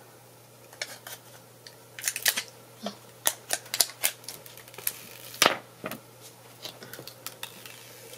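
Protective plastic film being peeled off a new iPhone XS Max: a run of short, irregular crinkly crackles and ticks, the sharpest about five and a half seconds in.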